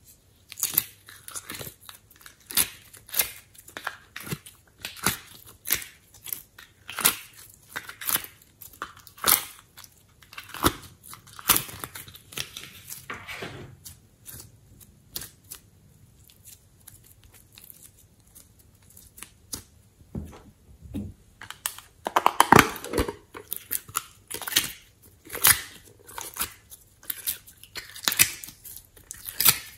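Sticky putty being peeled and pulled out of plastic trays and squeezed by hand, giving irregular wet crackles, pops and tearing sounds. There is a quieter stretch about halfway through and a denser, louder burst of crackling a little later.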